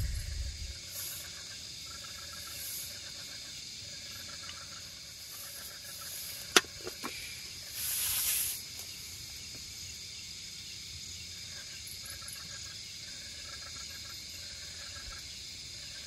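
Steady chorus of crickets trilling, with rows of quick repeated chirps under it. About six and a half seconds in there is one sharp knock, and a second later a short rustle, as the wooden plate and food are handled.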